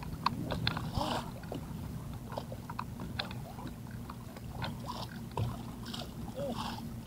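Irregular small clicks and knocks from a fishing reel being cranked and the rod and tackle being handled while a fish is played, over a steady low hum.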